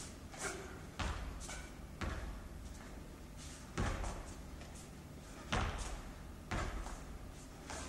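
Feet stamping and landing on a hard floor during a xingyi form: about seven sharp thuds at uneven intervals, some much louder than others, with brief swishes between them. A steady low hum runs underneath.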